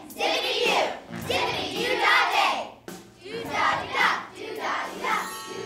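Children's voices in a stage play, in short phrases broken by brief pauses.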